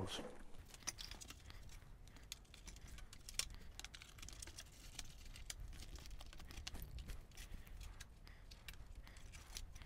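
Faint, irregular clicks and rustles of hands handling a foam-board model airplane while fitting its bottom wing with rubber bands.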